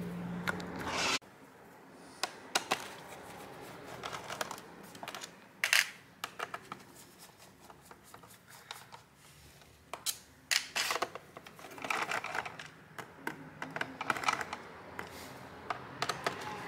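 Small laptop case screws being turned out with a screwdriver and dropped into a plastic parts tray: irregular sharp clicks and ticks, a few of them louder. A low hum stops about a second in.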